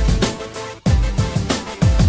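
Electronic background music with a steady beat of deep kick drums that drop in pitch, over held synth chords.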